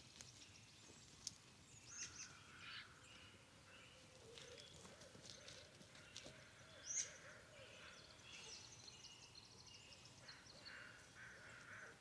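Faint birdsong: scattered high chirps and trills from several small birds, with one brief, louder chirp about seven seconds in.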